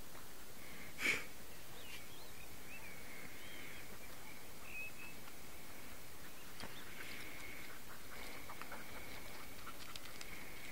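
Open-air background with faint, scattered bird chirps over a steady high thin hum, and one short, sharp noise about a second in.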